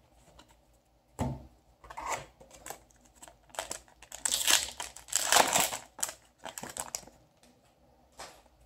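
Foil Yu-Gi-Oh! booster pack being torn open and crinkled by hand, a series of rustling tears that is loudest about halfway through.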